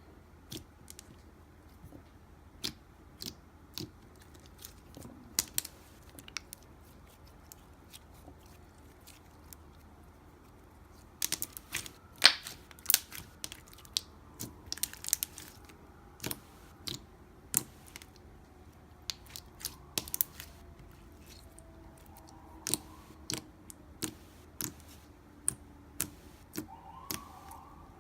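Slime being squished and poked, giving irregular sharp clicks and pops that come thickest about halfway through.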